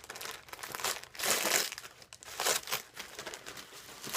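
Wrapping paper being torn and crumpled as a gift is unwrapped, in irregular rustling bursts, the loudest about a second in and again midway.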